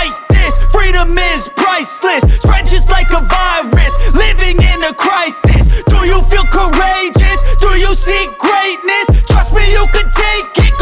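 Hip hop background music with a deep bass note that hits about every two seconds.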